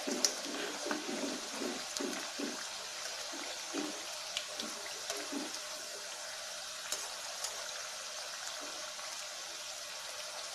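Bitter gourd pieces deep-frying in hot oil in a steel kadai: a steady sizzle, with a perforated skimmer stirring through the oil during the first half and a few sharp ticks of the skimmer against the pan.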